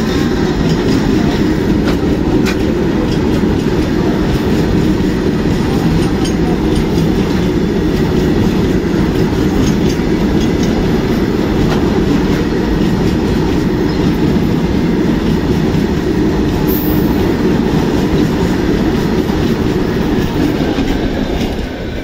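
Freight train of BOXN open wagons rolling past: a steady, loud low rumble of wheels on rail with a few faint clicks, dropping off at the very end as the last wagon clears.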